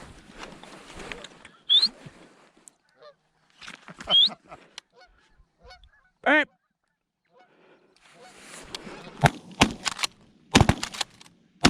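Geese honking as a flock comes in: a few separate calls, the clearest about six seconds in. Near the end come several sharp knocks and clicks.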